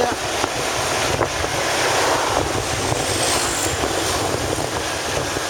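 Wind buffeting the microphone, with a steady low rumble underneath, as from moving along a road at speed.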